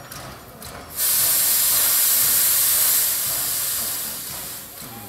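Steam locomotive Canadian National #7470 venting steam at its cylinders: a loud, high hiss that starts suddenly about a second in, holds for about two seconds, then fades away.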